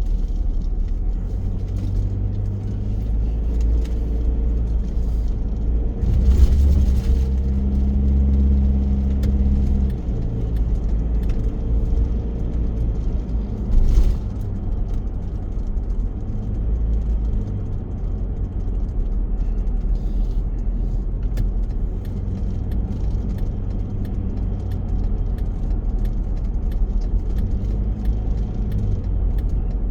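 Car engine and road rumble heard from inside the moving car, steady, with the engine note rising and getting louder about six seconds in and settling back about four seconds later. Light rattles and clicks run throughout.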